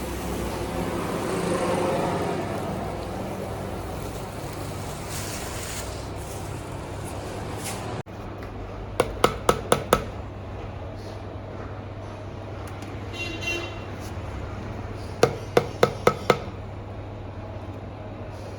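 Steady low mechanical hum with background noise, broken by two runs of five quick, sharp knocks about six seconds apart.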